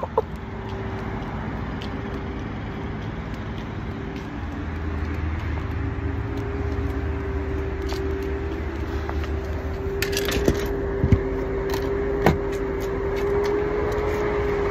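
Engine of a parked truck idling with a steady hum and low rumble, with a brief hiss about ten seconds in and a few sharp clicks after it.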